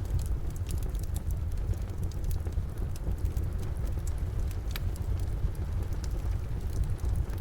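Wood fire crackling in a fireplace, with scattered sharp pops (one brighter about two-thirds through), over steady rain and a deep constant rumble.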